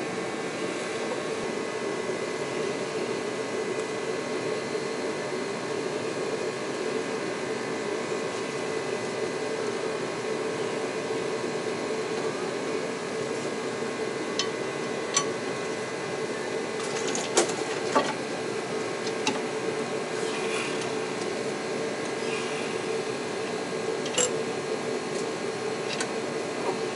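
A steady mechanical hum runs throughout. From about halfway through come a few scattered sharp metallic clicks and clinks of hand tools on a heavy truck's underside.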